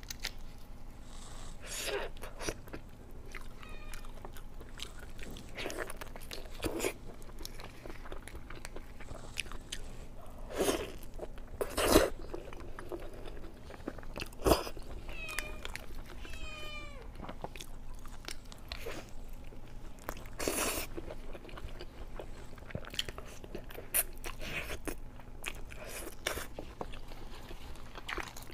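Close-miked eating of kiln-roasted chicken: repeated biting and wet, crunchy chewing with sharp mouth clicks. A few short squeaky sounds come about two-thirds of the way through.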